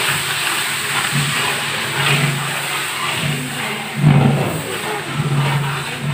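Ginger and other ingredients frying in hot oil in a large aluminium pot, stirred with a long ladle as more is tipped in. A steady rushing hiss with a low hum that comes and goes, loudest about four seconds in.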